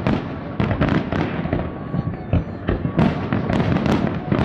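Fireworks display: a dense, irregular barrage of bangs from exploding aerial shells, several a second, over a continuous rumble.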